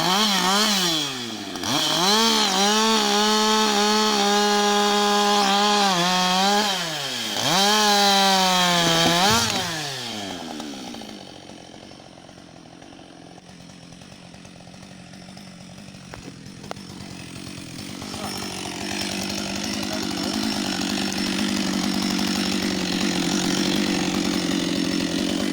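Husqvarna 560 XP two-stroke chainsaw, revved up and down and twice held at full throttle for several seconds. After about ten seconds it drops off and a much quieter steady engine sound continues, slowly growing louder toward the end.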